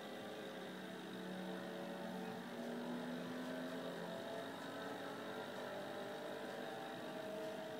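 Aquarium equipment humming, heard through the water: a steady hum of several tones that drift slightly in pitch, over a faint hiss.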